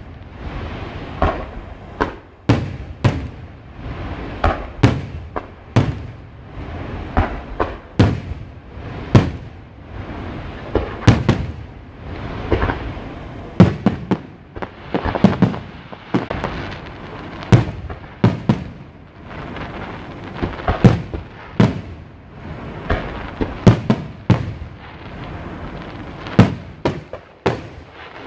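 Aerial firework shells bursting in an irregular run of sharp bangs, about one to two a second, each followed by an echoing rumble.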